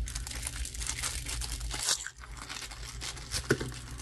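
A small plastic bag crinkling and rustling as it is opened and handled, busiest for about the first two seconds, then quieter with a few light clicks.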